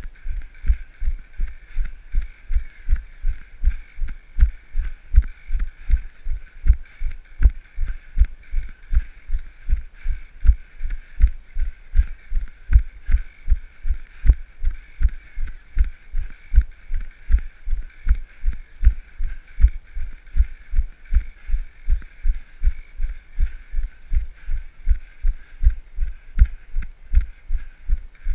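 Running footfalls, a steady stride of about three steps a second, each one a low thump as it jolts the camera, over a steady hiss.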